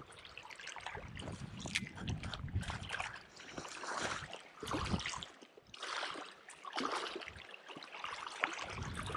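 Wind gusting over the microphone with small waves lapping at the shoreline: an uneven rushing noise that swells and fades, with a low rumble that drops out about halfway through.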